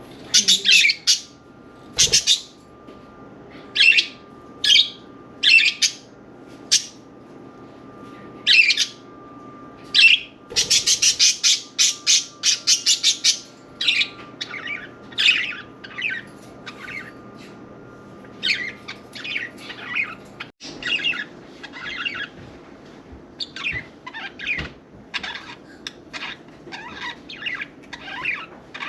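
Pet budgerigars calling: repeated loud squawks and chirps, with a quick run of calls a little before the middle, then softer, busier chatter.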